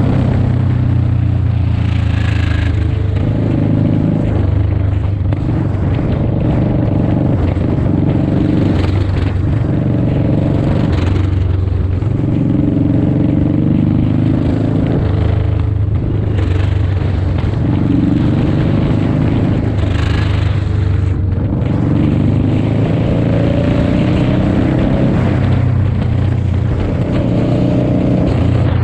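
Motorcycle engine running at highway speed, its pitch rising and falling with the throttle, mixed with rushes of wind noise.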